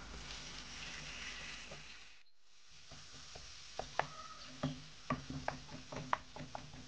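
Minced meat and onions sizzling in a frying pan, then a wooden spoon stirring the meat, knocking and scraping against the pan in a run of sharp clacks over the last few seconds.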